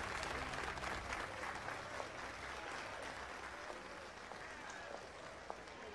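A large crowd applauding, the clapping gradually dying away.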